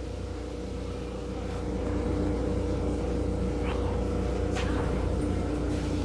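A steady low mechanical rumble and hum, growing a little louder about two seconds in.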